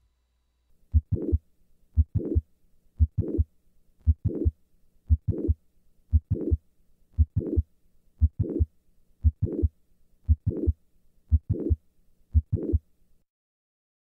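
Recorded heart sounds with the classic click-murmur of mitral valve prolapse: each beat carries a mid-systolic click followed by a late systolic murmur. About twelve beats at roughly one a second, stopping about a second before the end.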